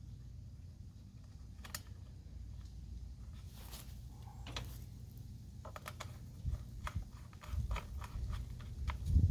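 Scattered light clicks and rattles from hands working a lawn-engine recoil pull-start and its cord, coming more often in the second half, over a steady low hum.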